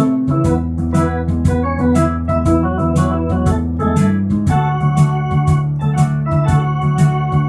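Electronic organ playing a melody over held chords, with its built-in shuffle drum rhythm keeping a steady beat; the chords change about four and a half seconds in.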